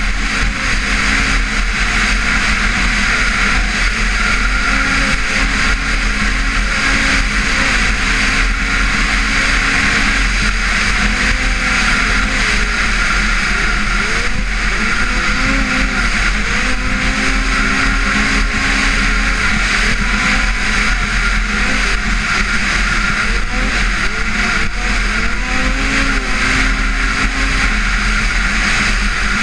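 Arctic Cat XF 8000 snowmobile's two-stroke twin, fitted with an aftermarket exhaust, running hard at speed. The engine note holds steady with small rises and dips in pitch.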